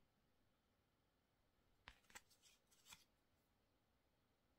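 Game cards being flipped and slid over one another in the hand: a short run of faint clicks and flicks about two seconds in, otherwise near silence.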